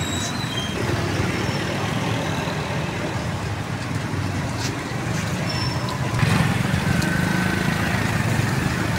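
Steady roadside traffic noise with a low engine rumble, growing louder about six seconds in.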